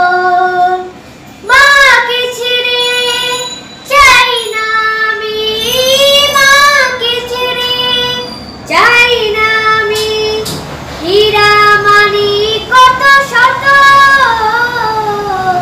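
A boy singing a Bengali song solo, without accompaniment, in long held notes that bend and slide, with brief pauses for breath.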